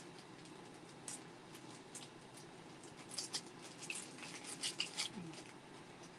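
Faint, irregular small clicks and scratchy rustles of hands handling things at a kitchen counter during cooking, thickest a few seconds in, over a low steady room hum.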